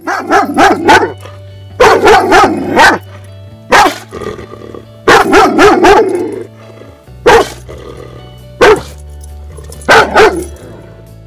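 A muzzled German Shepherd-type dog barking in repeated runs of several sharp barks, the reactive barking of a dog that is aggressive toward people and other dogs. Steady background music plays underneath.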